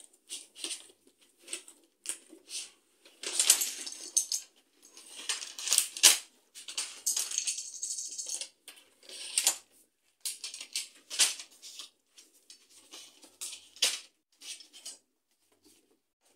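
Wire-framed panels and connectors of a DIY cube storage cabinet being handled and fitted together: irregular clicks, clatter and rustling in short bursts with brief pauses.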